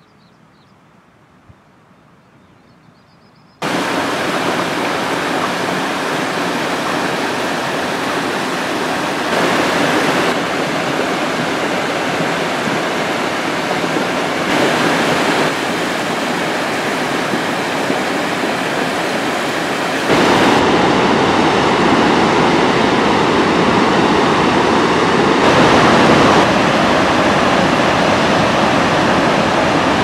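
Loud, steady rush of whitewater from a mountain stream and river rapids. It starts suddenly about four seconds in, after a few seconds of quiet, and steps a little louder or softer several times.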